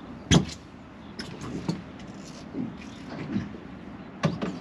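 A few sharp knocks and clicks of gear being handled on a small boat, the loudest about a third of a second in and a quick cluster of three near the end, over a steady low rumble of wind and water.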